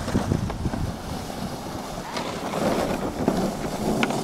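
Wind rushing and buffeting on the microphone, mixed with the hiss of a plastic sled sliding over snow.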